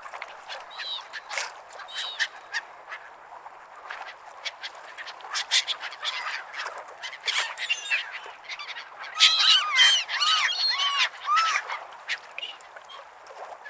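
Gulls calling and squawking, many overlapping arched cries with a dense flurry of calls about two-thirds of the way through, over a steady background hiss.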